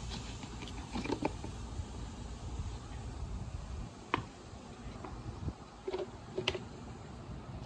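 Plastic vacuum dust-bin parts clicking and knocking as they are handled and set down on concrete: a few separate sharp taps, the sharpest about four seconds in, over a low steady rumble.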